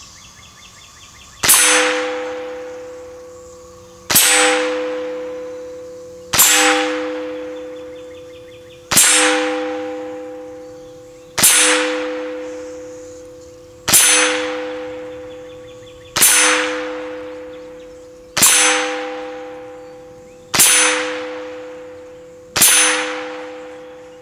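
Ten .22 LR rifle shots from a semi-automatic Ruger 10/22, one about every two and a half seconds, each hitting a steel target plate that rings with a clear metallic tone fading over about two seconds.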